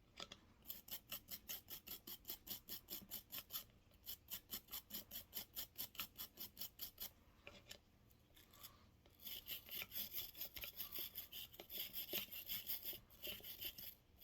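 Small cleaning brush scrubbing a revolver's cylinder and ejector rod in quick back-and-forth strokes, several a second. The strokes pause briefly midway, then resume faster.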